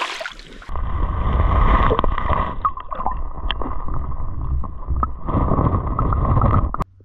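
Muffled underwater sound from a camera held under shallow lake water: a low rumbling wash of moving water, with a few small knocks as stones are turned over on the bottom, starting under a second in.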